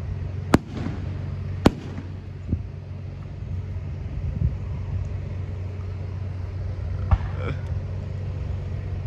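Fireworks exploding: two sharp bangs about a second apart at the start and a weaker one soon after. Near the end comes another bang followed by a brief crackle, all over a steady low hum.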